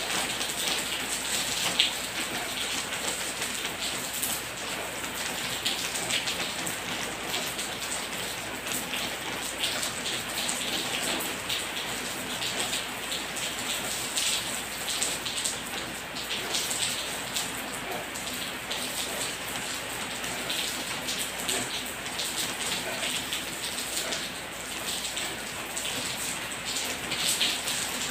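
Steady rain falling, a continuous hiss of many small drop taps.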